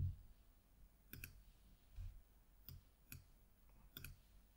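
Computer mouse clicking, about six faint separate clicks a second or less apart, as roles are selected and added in a dialog.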